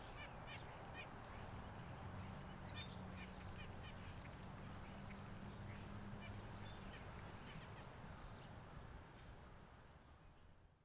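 Faint outdoor ambience: small birds chirping in short, high, repeated calls over a low steady hum, the hum stopping about two-thirds through and the whole fading out at the end.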